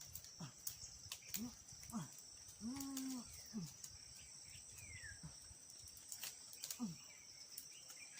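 Steady high-pitched drone of insects, with a series of short, low vocal grunts, one held for about half a second about three seconds in, and a few faint clicks.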